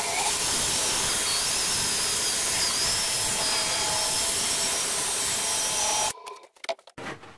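Hand-held power buffer with a foam pad whirring against a cherry-burl and epoxy egg spinning on a wood lathe, a steady rushing hiss with a faint high whine. It stops abruptly about six seconds in, followed by a few clicks.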